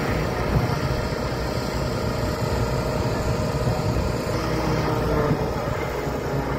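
An engine running with a steady drone, its level and pitch holding even throughout.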